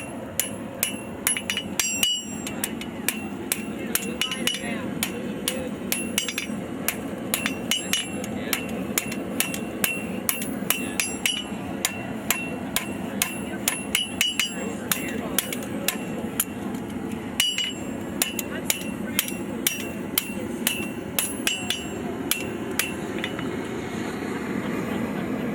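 Blacksmith's hammer striking a hot horseshoe file on an anvil, about two to three blows a second with a high ring on each strike, pausing briefly twice, as the tail of a forged rattlesnake is shaped. A steady rushing noise runs underneath.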